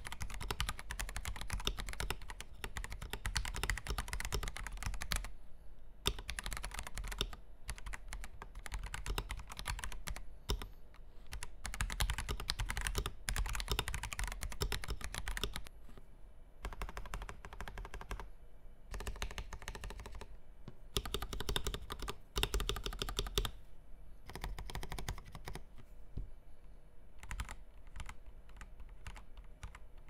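Typing on a KBD67 Lite 65% mechanical keyboard fitted with Gateron Yellow linear switches: fast runs of keystrokes broken by short pauses, thinning to separate key presses near the end.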